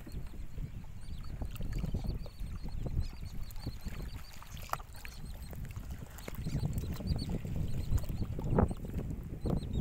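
Wind rumbling unevenly on the phone's microphone over open water, with a few sharper splash-like strokes near the end and faint high chirps.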